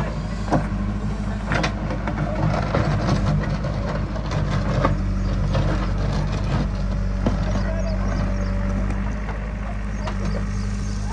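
Heavy diesel engine running steadily, with scattered knocks and clanks over it.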